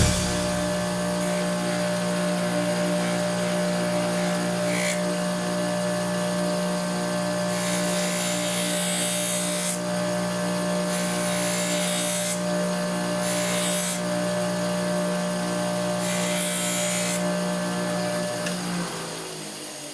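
Electric grinder motor running with a steady hum while a knife edge is polished on it to remove the burr, in several spells of hissing as the steel meets the polishing surface. The motor is switched off and winds down near the end.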